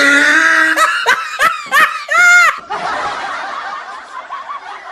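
Loud laughter with short, broken bursts and a final rising-and-falling whoop, settling after about two and a half seconds into quieter background noise.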